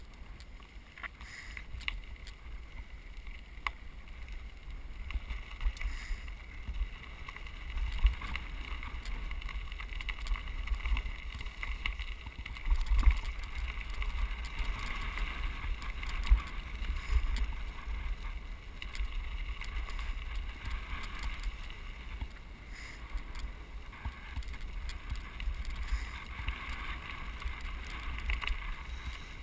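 Wind buffeting the microphone of a camera riding on a mountain bike, a steady low rumble, with bicycle tyres crunching over gravel and occasional knocks and rattles from the rough track.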